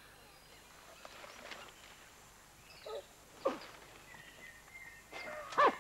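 Wild animal calls: a few short calls that fall in pitch, the loudest near the end, over a faint steady high tone.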